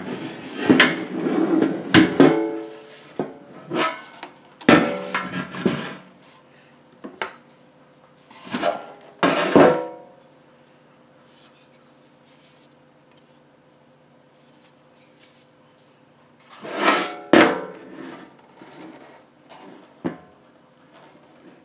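Air fryer's ceramic-coated basket and perforated crisper plate being handled. They knock, scrape and clatter in a string of sharp knocks, some ringing briefly, with a quiet stretch in the middle and two more knocks near the end.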